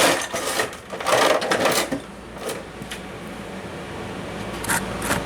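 A plastic humidifier fan being smashed: a burst of cracking and clattering in the first two seconds, then a few separate sharp knocks, over the steady hum of a portable air conditioner.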